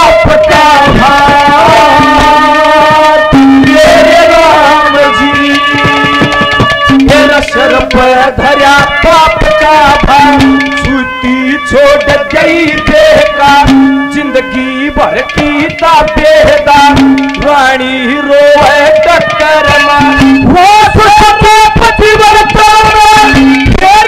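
Live Haryanvi ragni folk music: a bending melody over a fast hand-drum rhythm, playing without a break.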